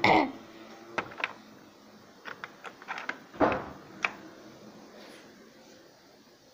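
Small plastic toys and a plastic toy basket being handled on the floor: a brief loud falling sound at the start, then scattered sharp clicks and knocks, with a louder scrape about three and a half seconds in. It goes quiet for the last two seconds or so.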